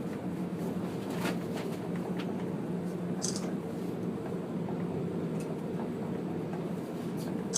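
CN Tower elevator cab climbing at speed: a steady low hum and rush, with a few faint clicks and a brief high hiss about three seconds in.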